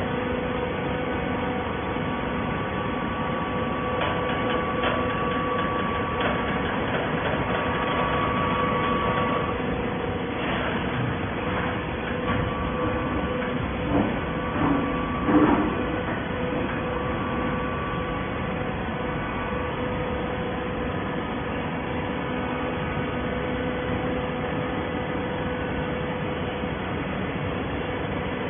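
Waste paper baler running with a steady machine hum at a few fixed pitches. A few short knocks come about halfway through.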